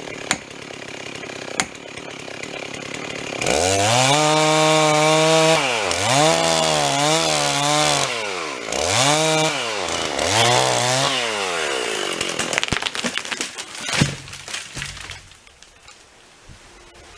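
A two-stroke chainsaw is throttled up to full revs about three seconds in and cuts, its pitch dropping and rising again several times as the throttle is eased and reapplied. It stops about twelve seconds in, followed by a few seconds of wood cracking and a sharp thump.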